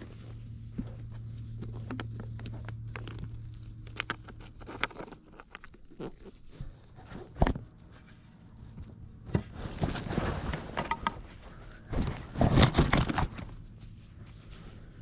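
Footsteps crunching and scraping on loose rock, with irregular sharp clicks throughout and two louder crunching stretches about ten and thirteen seconds in.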